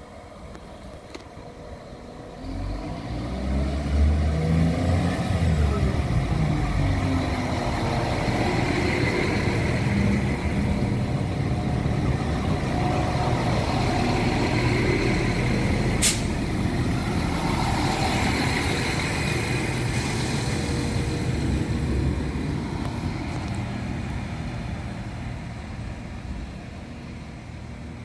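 Iarnród Éireann 22000 Class diesel railcar running in along the platform: engines and wheels on the rails, swelling about three seconds in and fading over the last few seconds. A single sharp clack about sixteen seconds in.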